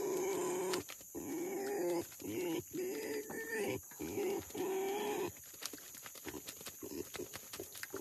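Pigs squealing in a run of drawn-out, wavering calls for about the first five seconds, followed by short clicks and knocks. A steady high chirring of insects runs underneath.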